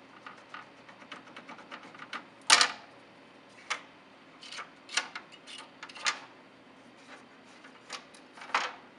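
Plastic plug-in connectors and ribbon-cable headers being pulled off a controller circuit board: a string of sharp clicks and snaps, the loudest about two and a half seconds in.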